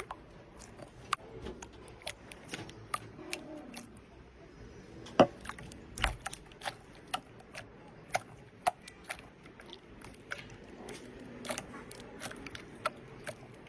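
Slime being handled and pressed, giving irregular sharp clicks and pops, a few a second, with one louder pop about five seconds in.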